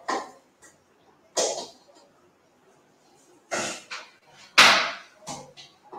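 Handling noise close to the microphone: about five short knocks and rustles in a few seconds, the loudest about three-quarters of the way through.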